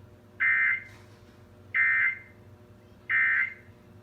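Emergency Alert System end-of-message (EOM) data tones closing a required monthly test: three short, loud bursts of buzzy digital SAME data, evenly spaced about 1.3 seconds apart.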